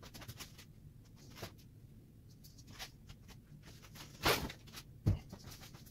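A sheet of quarter-inch drywall being handled and shifted by hand: scattered light taps and scuffs, a short scraping rush about four seconds in, and a dull thump just after five seconds.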